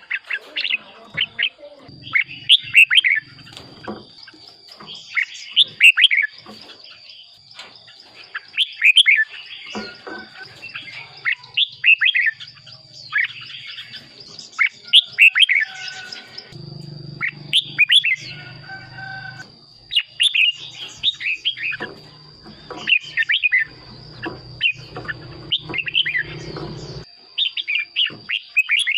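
Red-whiskered bulbul singing: short, bright, quickly gliding whistled phrases repeated every two to three seconds.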